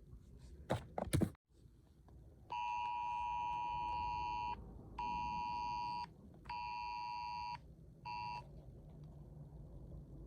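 Emergency Alert System attention signal: a steady two-tone beep sounded in four bursts, the first about two seconds long and the last very short. Just before it, about a second in, come two short, loud bursts of noise.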